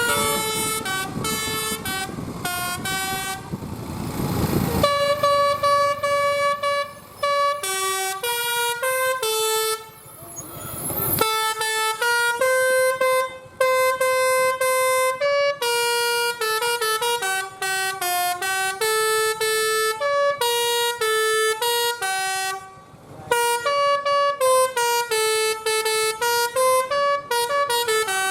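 A bus's telolet Basuri musical horn playing a fast melody, one short note after another with brief gaps. Two short spells of rushing noise break in, around four seconds in and again around ten to eleven seconds in.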